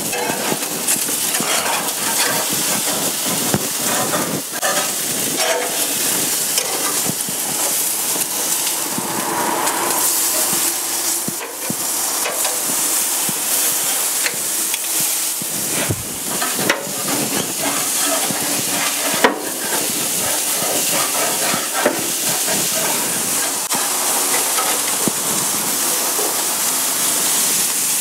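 Butterflied lamb leg sizzling on the hot grate of a gas grill as it is turned over with metal tongs and a spatula, with a few sharp clicks of the tools against the grate.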